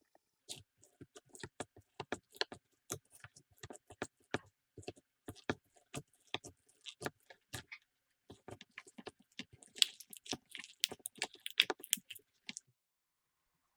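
Slime being squeezed and poked by hand, making a stream of small sharp clicks and pops that come thickest about ten to twelve seconds in.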